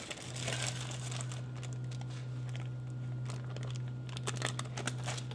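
Paper crinkling and rustling as a printed sheet holding grated cucumber is handled and folded over, with a steady low hum underneath.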